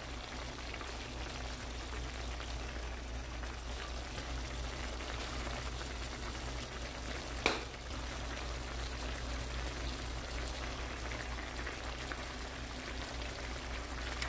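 Cream sauce simmering in a pan: a steady bubbling hiss, with one sharp tap about seven and a half seconds in.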